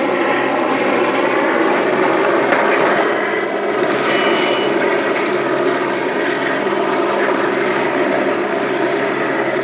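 Helicopter flying low, its rotors and engine running in a loud, steady drone.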